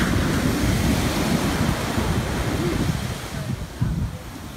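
Sea surf breaking and washing up the beach, with wind buffeting the microphone; the rush of water is loudest for the first few seconds and then eases.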